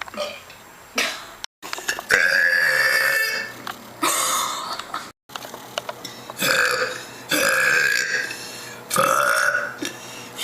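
A woman belching, a run of about six long, drawn-out burps one after another, the longest lasting about two seconds; the sound drops out completely twice for a split second.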